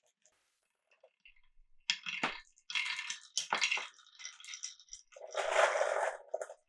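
Marbles on a wooden and plastic marble run: sharp clacks and short rattles as they roll and drop through the track, then a longer, louder rush of rolling near the end.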